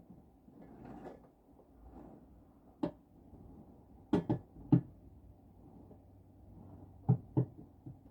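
Tree branches knocking against a frosted skylight in the wind: about seven sharp knocks, some in quick pairs, with faint soft scratching swells between them.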